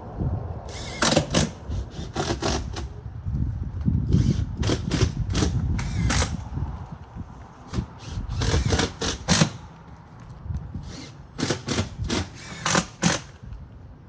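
Roofers working on a metal roof: groups of sharp metallic knocks and bangs, several quick strikes at a time, coming every few seconds over a low background rumble.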